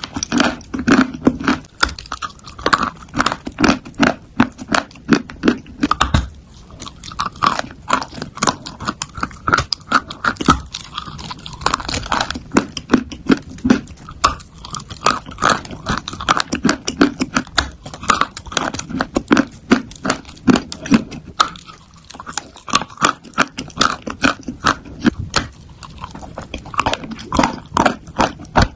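A person biting and chewing lumps of chalk close to the microphone: a steady run of crisp, gritty crunches, about two to three a second.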